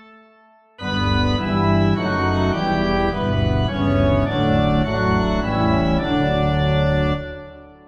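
Organ playing a hymn accompaniment with no voices. After a short break about a second in, it plays a phrase of sustained chords over a moving bass. The last chord is released near the end and dies away, closing the hymn.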